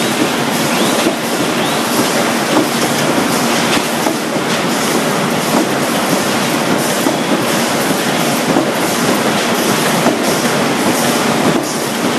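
Loud, steady clatter and rattle of factory machinery on a semi-automatic corrugated-board pre-feeder line, with a couple of short rising squeaks about a second in.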